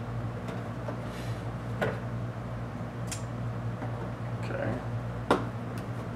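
Toy packaging being handled: a few scattered clicks and light rustles from the box and clear plastic tray, over a steady low hum.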